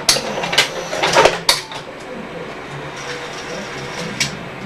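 Sony UVW-1700G Betacam SP deck's tape transport clicking and clunking into gear several times, then running with a steady faint whir and hum as it starts playing a tape after a head cleaning. A single click comes near the end.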